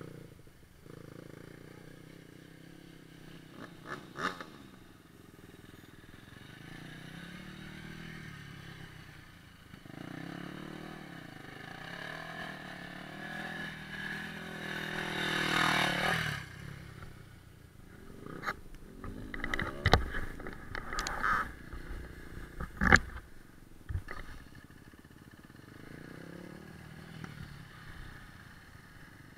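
A 450 cc single-cylinder off-road engine running, revving up and down and loudest about halfway through before it drops off. Several sharp knocks and clatters close to the microphone follow in the second half.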